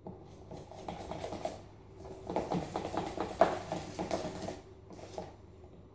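A spoon stirring pancake batter in a plastic measuring jug: quick, dense clicks and scrapes against the jug, in two spells with a short pause between and a few strokes near the end.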